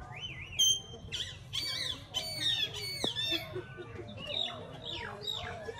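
Monkeys giving a rapid series of short, high-pitched squeals, each rising and falling in pitch, with a sharp short squeak about half a second in as the loudest call.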